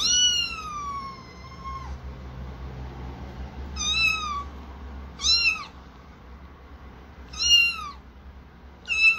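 Kitten meowing five times: one long high call that slides down in pitch, then four short meows spaced a second or two apart.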